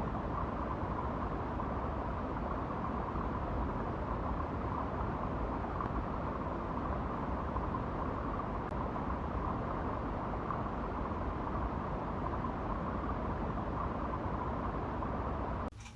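Steady droning noise with a hum at one pitch running through it, cutting off abruptly near the end.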